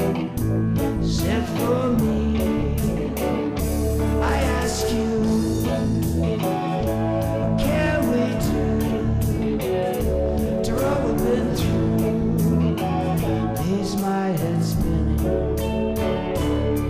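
Blues-rock band music with electric guitar over a steady drum beat, with bending, sliding guitar lines.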